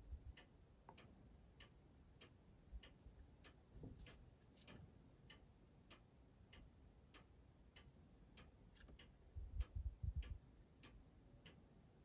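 Near silence with faint, regular ticking, about two ticks a second, and a few soft low handling rumbles near the end as the small plastic funnel model is turned in the hands.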